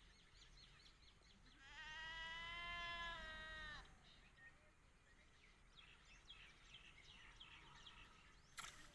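A goat bleating once, one long steady call of about two seconds, with small birds chirping faintly around it.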